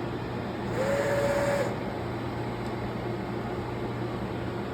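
Clausing CNC1440 CNC lathe starting a test program. Over a steady low machine hum, a motor whine with a rushing sound comes in about a second in, holds for about a second, then cuts off.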